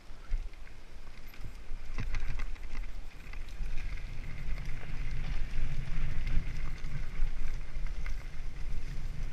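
Mountain bike descending a dirt singletrack at speed: tyres running over dirt and the bike rattling with sharp knocks over bumps. Wind rumbles on the microphone, growing stronger after a few seconds.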